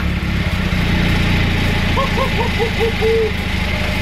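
The Dodge pickup's swapped-in 2.3-litre Volvo four-cylinder engine idling steadily just after starting straight away on a new battery, after about two and a half months parked; it is idling perfectly. About two seconds in, a run of six short pitched notes sounds over the engine.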